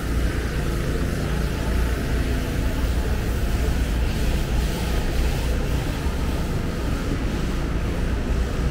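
Street traffic in Manhattan: a steady low rumble of vehicle engines with a wash of road noise, holding even without a break.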